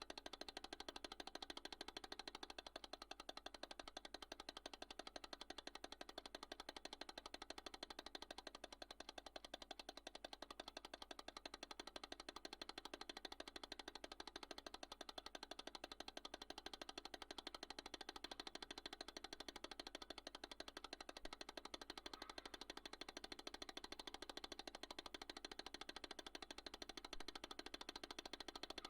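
Mechanical cooking timer ticking rapidly and evenly as it counts down.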